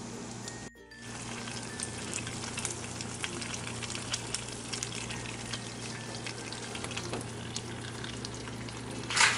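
A quesadilla frying in a nonstick skillet: a steady sizzle with frequent small crackles and pops as the tortilla and cheese fry under the chicken and bacon filling. A short louder burst of noise comes near the end.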